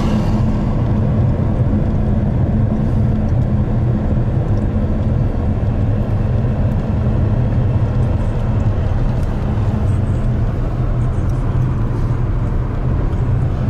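Steady low drone of a car's engine and tyre noise, heard from inside the cabin.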